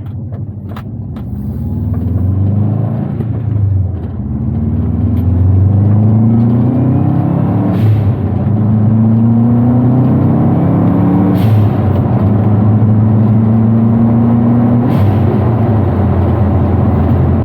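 Subaru Forester's flat-four boxer engine accelerating hard through several gears, its pitch climbing and dropping back at each shift. It pulls smoothly, a sign that the no-start fault is cured. Heard from the car's roof.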